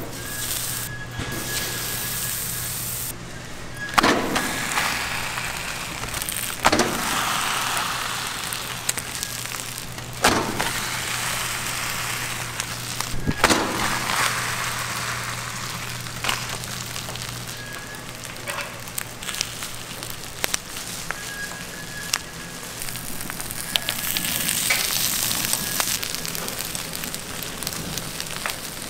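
Wood fire crackling and hissing in a wood-fired roaster, with scattered sharp cracks. In the first half, louder surges of hissing come every three seconds or so, each starting with a crack.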